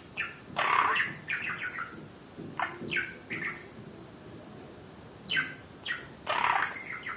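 Budgerigar chirping and chattering at its mirror reflection: quick bursts of short, sharp falling calls, with a brief lull in the middle before another burst.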